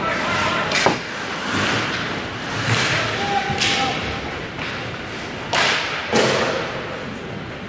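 Ice hockey play at close range: skate blades scraping and carving the ice, with about four sharp knocks and thuds of sticks, puck and bodies against the boards and ice.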